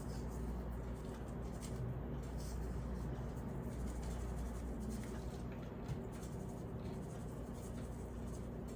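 Faint light scratching and rustling, like hands handling things, over a steady low hum.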